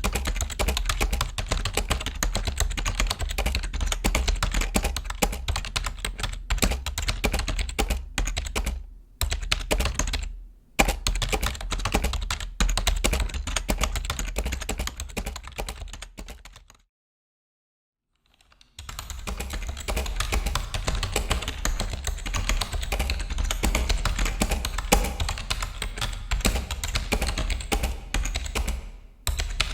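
Continuous typing on a computer keyboard: a dense, irregular run of key clicks, broken by two brief pauses and a full stop of nearly two seconds a little past halfway before the typing resumes.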